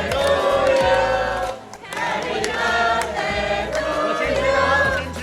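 A group of people singing together, a birthday song.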